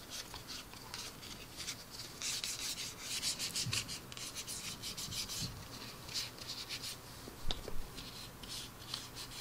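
Paper towel rubbed back and forth over a gloss-coated plastic model part, a series of short, soft scrubbing strokes as dried panel-line wash is wiped off.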